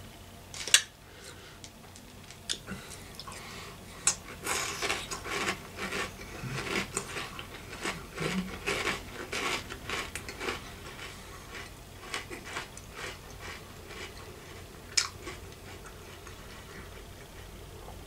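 A metal spoon clinks against a cereal bowl about a second in and again near the end. In between, a run of crunchy chewing of peanut butter puffed cereal.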